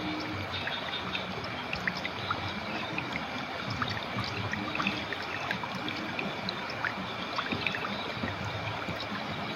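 Clear river water flowing: a steady rush with many small, quick plinks and trickles scattered through it.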